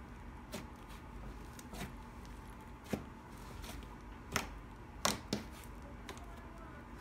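Thick white cream slime squeezed and folded by hand, giving a handful of sharp, irregular pops and clicks; the loudest come a little past four seconds in and twice around five seconds.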